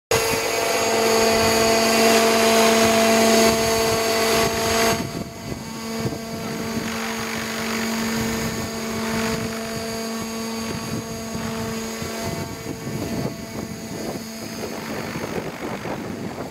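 Radio-controlled scale model helicopter flying: a steady drone of rotor and motor with a constant pitched hum and a fainter high whine. It is loudest for the first five seconds, then drops abruptly and goes on quieter and more unsteady.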